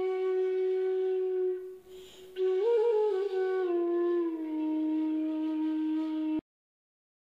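Background music: a solo flute plays long held notes, with a short break about two seconds in and a brief ornamented phrase just after. The music cuts off suddenly about six seconds in.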